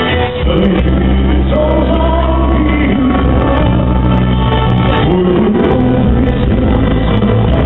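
A male singer singing live into a microphone over an amplified backing track, with steady held bass notes underneath.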